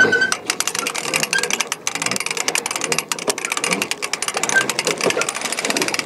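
Hand-cranked longline reel clicking rapidly as it is wound fast, hauling in the last stretch of the longline.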